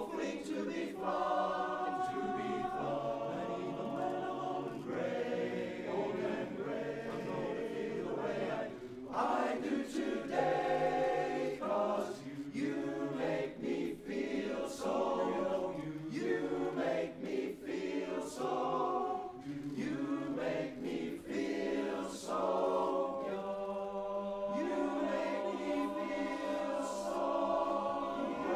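Male barbershop chorus singing a cappella in close harmony, moving through a run of held chords.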